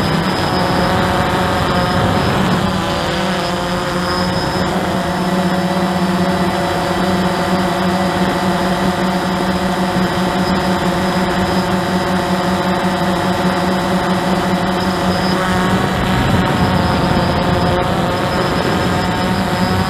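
Hubsan H109S quadcopter's electric motors and propellers running steadily in flight, heard close up through its onboard camera. The pitch shifts a little a few seconds in and again near the end.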